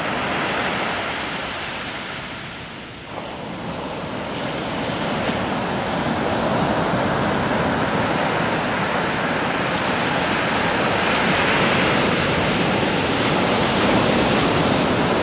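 Pacific Ocean surf breaking on the shore: a steady roar of waves that eases about three seconds in, then swells back up and stays strong.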